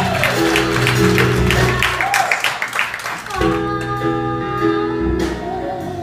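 Live band playing a 1960s pop number, with a woman singing. A quick percussive beat runs for the first two seconds, dips briefly, then held chords come in a little past halfway.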